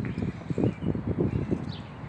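Irregular crunching and rustling of dry pine needles, twigs and cones on the ground as something moves over them, with a faint short high chirp near the end.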